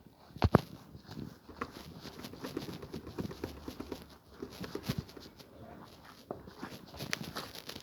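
Slime being squeezed and worked by hand: a steady run of small sticky clicks and pops, with a couple of louder snaps about half a second in.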